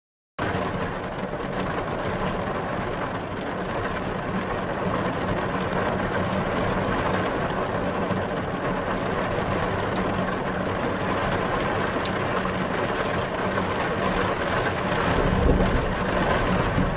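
Steady vehicle engine noise that cuts in suddenly after a short silence and runs on evenly, swelling a little near the end.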